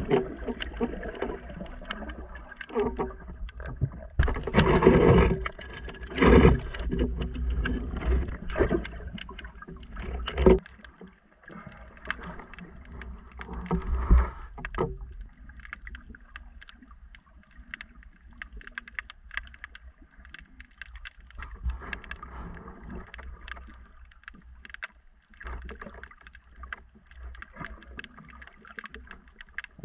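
Muffled underwater water noise: rushing and gurgling with irregular knocks and surges as a diver swims, busiest in the first half and quieter toward the end.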